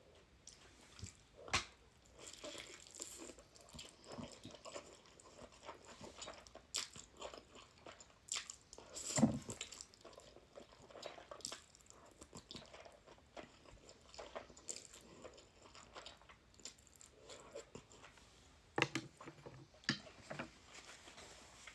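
Close-miked chewing of ramen noodles: soft wet mouth clicks and smacks throughout, with a few sharper knocks, the loudest about nine seconds in.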